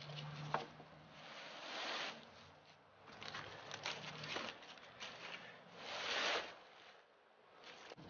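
Dry fallen leaves crunching and rustling under footsteps, in a few uneven swishes.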